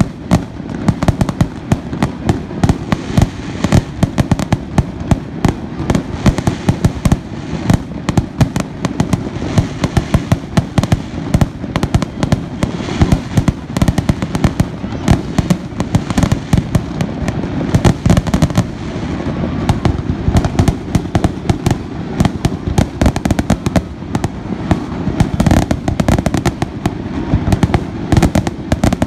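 Fireworks display: a dense, continuous barrage of aerial shell bursts and crackling, with frequent loud bangs.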